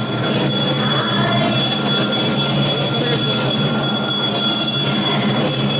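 Steady din of a large street crowd on foot, with constant high-pitched ringing tones over it.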